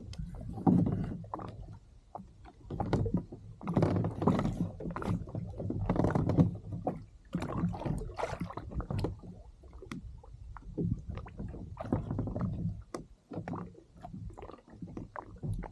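Water sloshing and gurgling against a kayak hull in uneven swells, with scattered small knocks and clicks.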